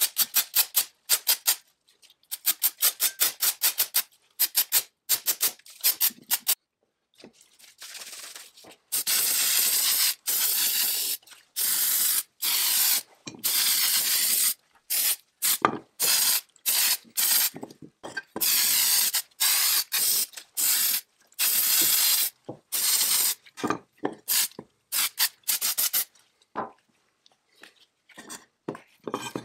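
Quick hand-rubbing strokes on metal chainsaw engine castings, about five a second, in short runs. These are followed by a long string of hissing blasts, each about a second long and cut off sharply.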